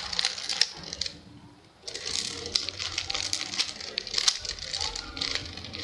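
Plastic mirror cube being twisted by hand: a fast run of clicks and clacks as its layers turn, with a short pause about a second in.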